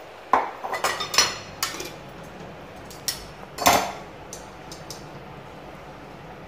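Steel utensils clinking and knocking against a stainless steel pan: several scattered clinks, the loudest about halfway through.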